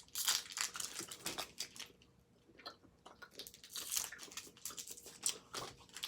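Hi-Chew candy wrappers crinkling and chewy candy being chewed, a run of quick crackly clicks and rustles that lulls for a second or so about two seconds in, then picks up again.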